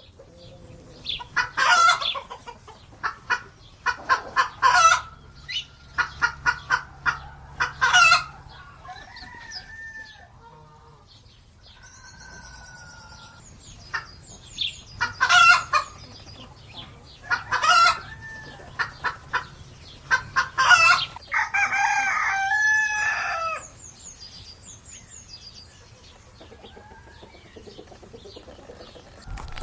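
Chickens clucking and squawking in short loud calls, with a rooster crowing once in a long call about two-thirds of the way through.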